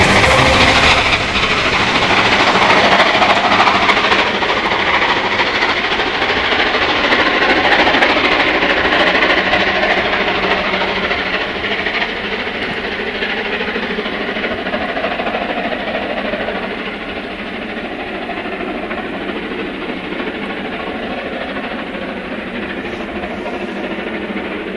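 Steam locomotive hauling a passenger train running past, a dense steady rush of exhaust and running noise that slowly fades away over the second half.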